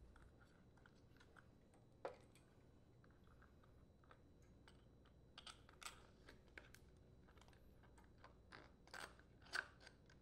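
Faint, scattered clicks and light taps of small engine parts being handled: a gasket and carburetor being slid onto mounting bolts against a plastic air filter housing. There is a single click about two seconds in and a run of irregular clicks in the second half.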